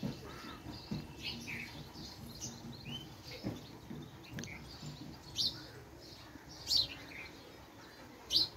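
Birds chirping: short, high chirps at irregular intervals, one a quick rising note, with a few louder ones in the second half.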